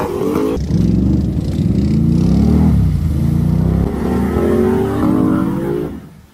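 Can-Am X mr ATV's V-twin engine revving hard under load as the quad churns through deep mud, its pitch climbing and falling with the throttle; the sound drops off suddenly near the end.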